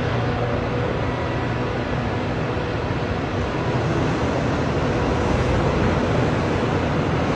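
Large excavator engines running steadily under load: a continuous mechanical noise with a low drone, and no distinct knocks or changes.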